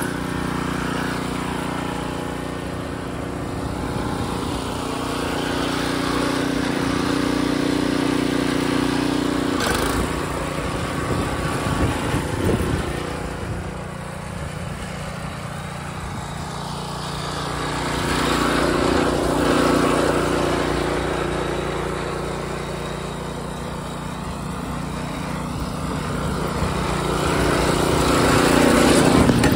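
Harbor Freight Predator 212 single-cylinder engine in a Wheel Horse garden tractor, running steadily while the tractor is driven. Its sound swells and fades several times.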